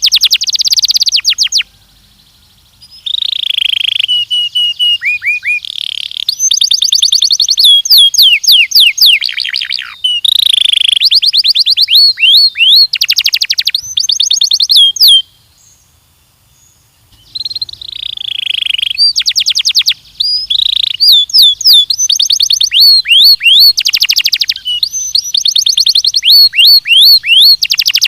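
Belgian canary singing: long loud phrases of rapid trills and quick repeated descending whistles, with two brief pauses between song bursts.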